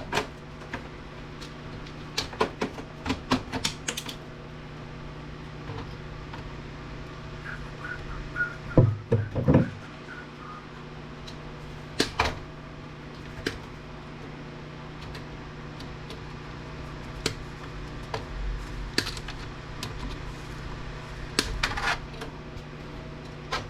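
Scattered clicks and knocks of plastic and metal parts being handled while an APC backup battery unit is taken apart, over a steady low hum.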